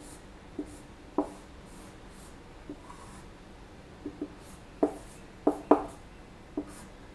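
Marker pen drawing on a whiteboard: faint scratchy strokes with about ten short taps and squeaks as the tip meets the board.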